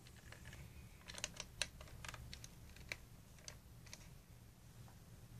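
Faint, irregular light clicks, some in quick runs, over a steady low hum.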